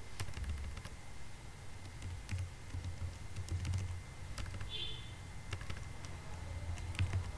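Computer keyboard keys clicking at an irregular pace as a username is typed, deleted and retyped.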